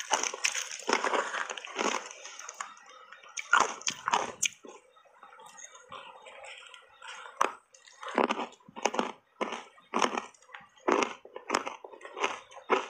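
Crunchy chewing and biting of reshaped ice dusted with matcha powder. The crunches come irregularly at first, go quieter in the middle, then settle into an even chewing rhythm of about two crunches a second.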